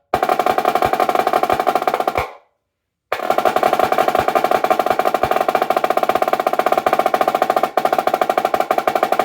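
Marching snare drum played in fast, dense strokes and rolls. It stops abruptly about two seconds in, falls silent for under a second, then picks up again.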